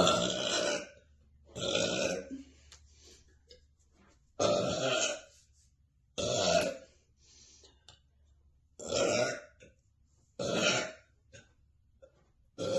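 A woman burping over and over: six burps, each under a second long, spaced about two seconds apart, with a seventh starting at the very end.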